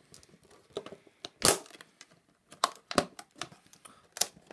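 Plastic packaging of an HDMI cable crinkling and crackling as it is handled and opened, in scattered sharp crackles, the loudest about a second and a half in.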